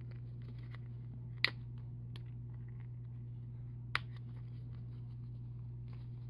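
Plastic coin tube being twisted and pried at by hand, its lid stuck: faint plastic rubbing and ticks, with two sharp clicks about one and a half seconds in and again about four seconds in, over a steady low hum.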